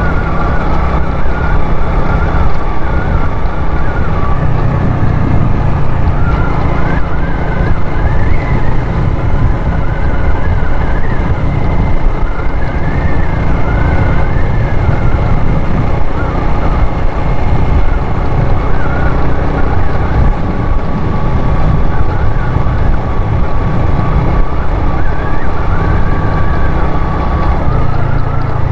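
Wind buffeting the microphone of a moving motorcycle, a loud, steady low rumble, with the motorcycle's engine whine wavering up and down in pitch above it.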